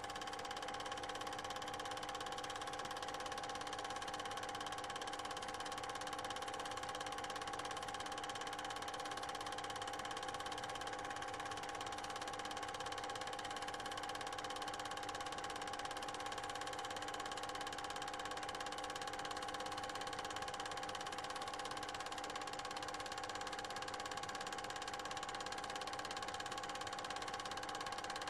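Steady electrical or machine hum made of several fixed tones over a constant hiss, with no change and no distinct events. It is noise from the film transfer, not sound from the filmed scene.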